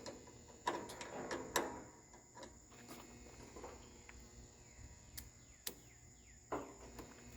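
Scattered sharp clicks and knocks, about six in all, as of tools and metal parts being handled on a riding mower, over a steady high-pitched insect chirring.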